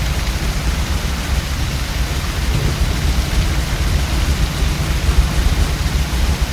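Typhoon storm sound effect: steady heavy rain over a continuous low rumble.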